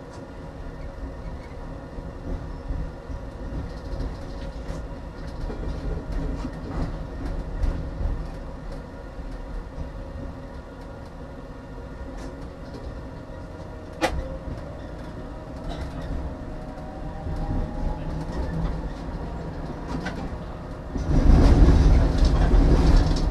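Tram running on track: a steady rumble of wheels on rail with some clatter, and a faint whine that rises in pitch in the middle. There is one sharp click about fourteen seconds in. Near the end a much louder rumbling rush comes in for the last two seconds.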